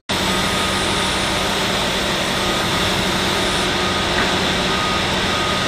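Steady machine noise: an engine running at a constant speed, a low hum under a broad hiss.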